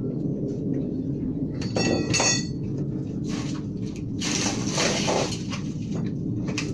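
Two ringing metallic clinks about two seconds in, then scraping and handling knocks, over a steady low rumble.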